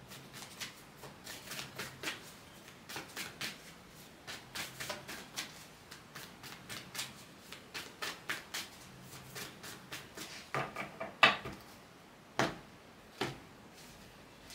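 Oracle card deck being shuffled by hand: a run of quick, irregular card clicks and flicks, with a few louder snaps near the end as the cards are cut and one is drawn.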